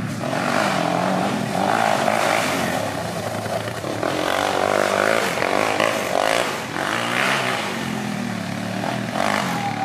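Quad bike (ATV) engines running hard and revving up and down.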